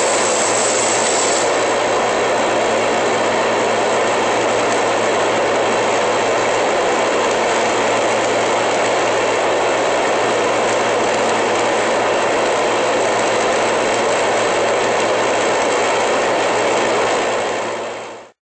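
AC TIG welding arc on aluminum, with the high frequency left on continuously: a loud, steady hiss with a low hum underneath. It dies away near the end as the arc is broken.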